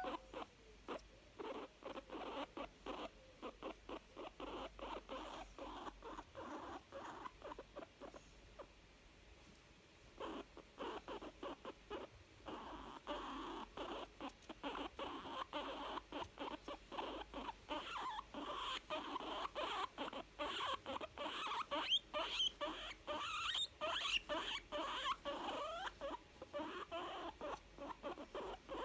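Young guinea pig making a long run of short, rapidly repeated contented sounds, a few per second, with a brief pause about nine seconds in.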